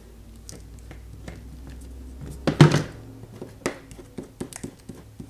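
Hands handling a glued paper-covered cardboard book cover on a cutting mat: light rustles and taps, with one solid thump about two and a half seconds in and a few sharp taps after it.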